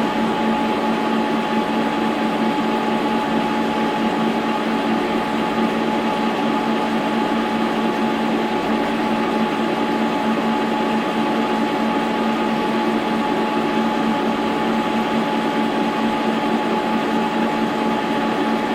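Brown & Sharpe horizontal milling machine running steadily during a drilling operation, a constant motor and gear hum with a fixed whine.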